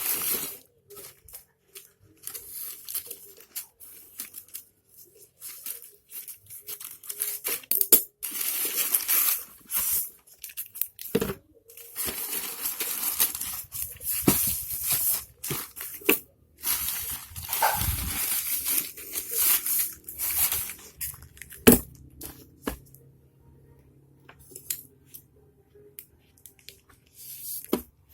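Plastic packaging being torn open and crinkled by hand, in irregular rustling bursts with sharp clicks and knocks in between. The rustling is busiest from about eight to twenty-one seconds in and thins out to occasional ticks near the end.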